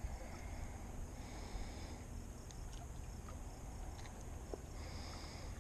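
Low outdoor ambience: a steady low rumble of wind on the microphone, with faint insect trills coming and going and a few small clicks.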